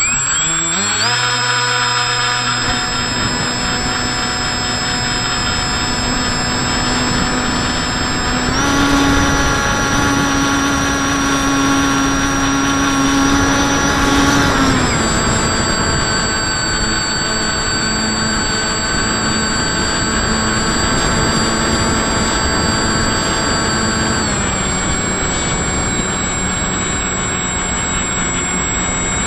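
FPV model aircraft's motor and propeller, heard close up through the onboard camera. It spins up at the start, then runs at a steady pitch. The pitch steps up as the throttle opens about nine seconds in, drops back about fifteen seconds in, and drops a little more near the end. A thin, steady high whine sits above it throughout.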